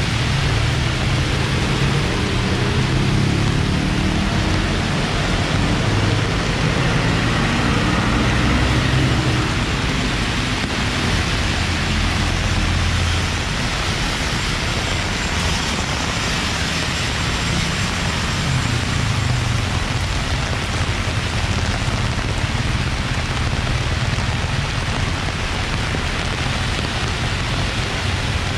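Heavy rain pouring onto pavement as a steady hiss. Cars and motorbikes pass on the wet road alongside, and their low rumble swells and fades now and then.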